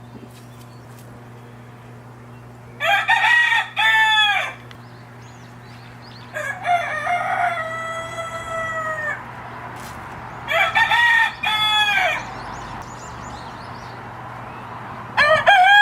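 Rooster crowing four times, each crow one to three seconds long with a few seconds between them, the fourth starting near the end. A steady low hum runs underneath.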